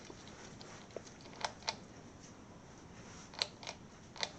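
Faint sharp clicks of a ceiling fan light kit's pull-chain switch, in pairs about a quarter second apart, about a second and a half in and again about three and a half seconds in, with one more near the end: the three-way light kit being switched through its settings.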